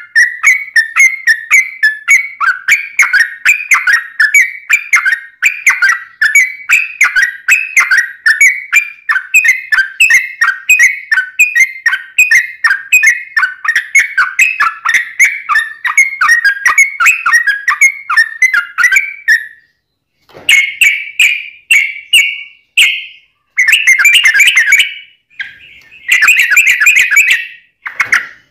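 Yellow-vented bulbul (trucuk) singing a long, rapid run of whistled chirping notes without a break for about twenty seconds, then breaking into several shorter bursts of song with short pauses between them.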